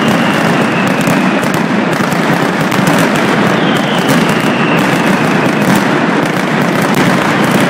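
Mascletà firecracker barrage: petards going off in rapid, unbroken succession as a loud, steady rattle of bangs. A faint falling whistle rises above it twice.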